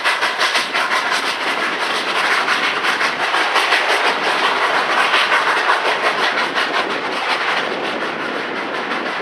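Narrow-gauge passenger coaches of the Cumbres & Toltec Scenic Railroad rolling past close by, their wheels clacking rapidly and steadily over the rail joints.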